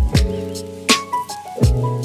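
Background music with a steady drum beat under sustained chords.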